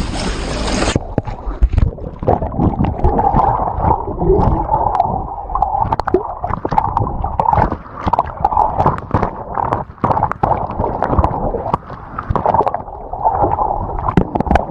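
Wind blasting the microphone for about the first second, then an abrupt change to churning, gurgling water full of irregular splashes and knocks, as around a jet ski in a ship's wash.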